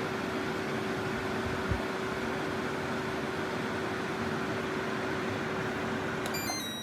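SereneLife 12,000 BTU portable air conditioner running: a steady fan whoosh with a steady hum, shutting off near the end. There is one short thump about two seconds in.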